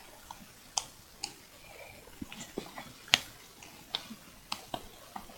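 A spoon stirring sticky homemade slime of glue and liquid detergent in a bowl: light, irregular clicks and taps with soft sticky smacks, the sharpest a little past the middle.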